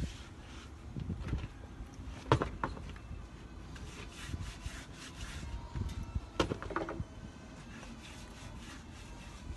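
Hand work at a pickup's wheel: low rubbing and scraping, with two sharp metal clinks that ring briefly, one about two seconds in and one about six seconds in.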